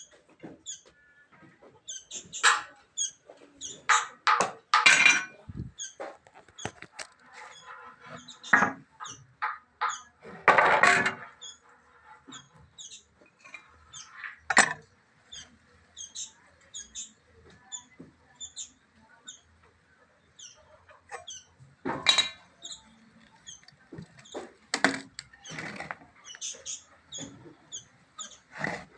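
Short high chirps repeating about twice a second, with scattered knocks and a brief rasp about ten seconds in.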